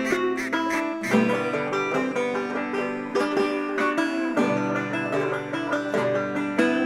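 Background instrumental music of plucked strings with a steady rhythm.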